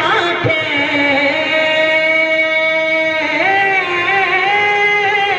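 A naat being sung by a solo voice, drawing out long melodic notes without clear words and gliding between pitches. About a second in, one note is held steady for roughly two seconds before the melody moves on.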